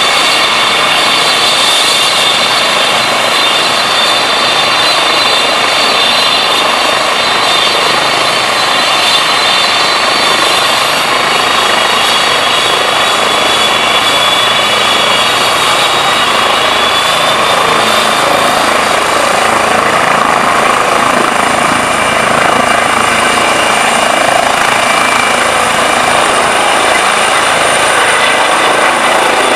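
Eurocopter EC135 trauma helicopter running with its rotor turning: a loud, steady high turbine whine over the rush of the rotor.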